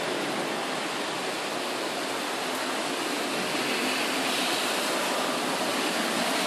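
Steady thunderstorm downpour: rain falling as an even hiss.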